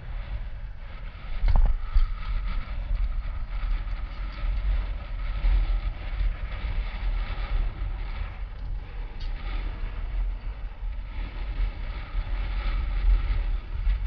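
Wind buffeting and tyre rumble on the microphone of a handlebar-mounted GoPro Hero 4 as a bicycle rolls along an asphalt street, with a knock about one and a half seconds in.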